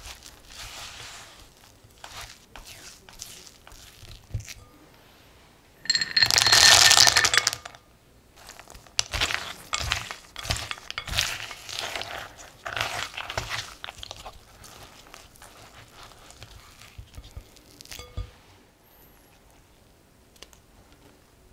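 Silicone spatula scraping and folding crumbly biscotti dough against a glass mixing bowl in short strokes. About six seconds in, whole almonds clatter into the glass bowl for about two seconds, with a faint ring of glass, and then the scraping and folding go on more quietly.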